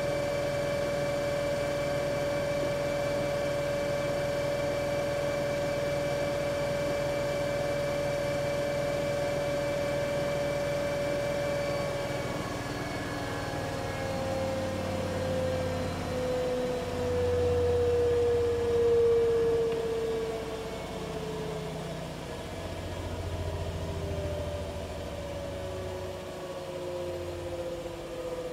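Siemens iQ500 9 kg, 1200 rpm front-loading washing machine at the end of its spin cycle. A steady high whine holds for about twelve seconds, then falls in pitch as the drum slows down, with low rumbling in the second half. It is a normal, healthy spin sound, without the knocking of failed shock absorbers or the helicopter-like drone of worn bearings.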